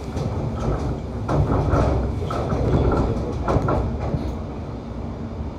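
Inside a London Overground Class 710 electric multiple unit running along the line: a steady low rumble of wheels on rail. The clatter of the wheels over the track grows louder for a couple of seconds in the middle, with a run of knocks.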